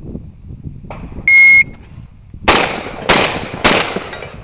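A shot timer beeps once to start the run. A semi-automatic shotgun then fires four rapid shots about half a second apart.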